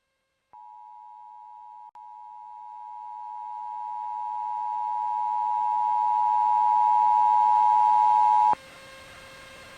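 Emergency Alert System two-tone attention signal, 853 Hz and 960 Hz sounding together, as broadcast on FM radio. It starts about half a second in, drops out briefly near two seconds and grows steadily louder, then cuts off suddenly about a second before the end, leaving a faint steady hum.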